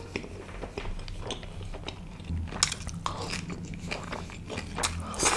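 Close-miked chewing of a mouthful of butter naan with butter chicken, with many irregular mouth clicks and a couple of louder bursts of smacking as he works the food and eats off his fingers.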